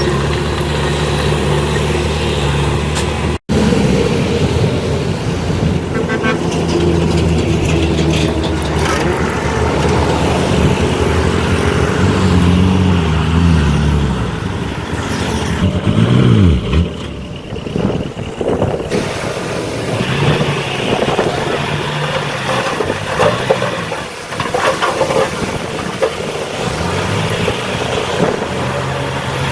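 Engines of heavy earthmoving machines, dump trucks and a bulldozer, running under load, with the revs rising and falling a few times. The sound cuts out for an instant about three seconds in.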